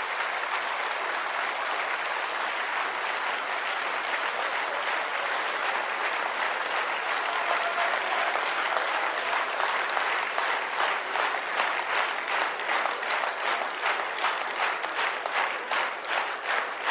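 A large audience applauding. About ten seconds in, the clapping falls into a steady rhythm, the whole hall clapping in unison.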